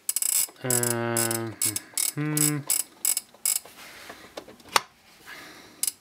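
Alarm-setting mechanism of a Copal 703 (Talisman 40) flip alarm clock clicking as its knob is turned: a quick run of sharp clicks over the first three seconds or so, with two short low hums among them, then one more click near the end.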